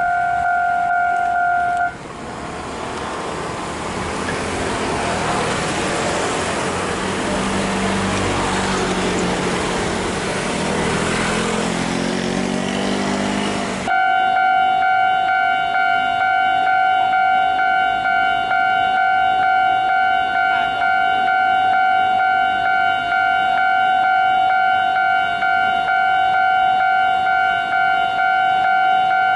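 A level-crossing warning bell rings with a steady electronic two-tone. From about 2 s to 14 s it is replaced by a Puyuma tilting express train passing on electric power, a rising rushing rumble with wheel and motor noise. About 14 s in the crossing bell comes back abruptly and rings steadily to the end.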